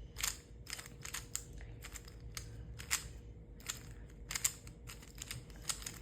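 Dayan Guhong M Pro magnetic 3x3 speed cube being turned by hand: about a dozen quick, irregular plastic clicks as the layers snap into place.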